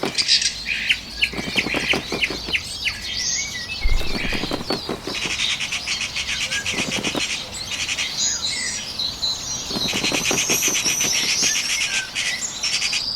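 Small birds chirping and trilling, with fast runs of repeated notes twice in the middle. Several short flutters of flapping wings come in between.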